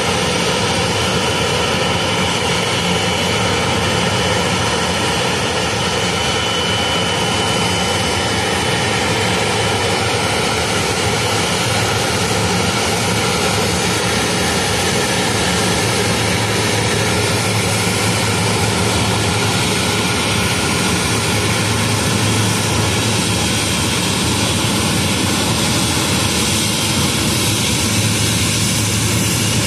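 Jet airliner engines running with a steady, loud noise and a low hum, plus a thin high whine that fades out about eight seconds in.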